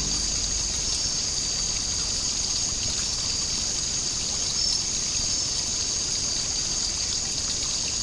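Shallow rocky stream trickling steadily, with a steady high-pitched drone above the water.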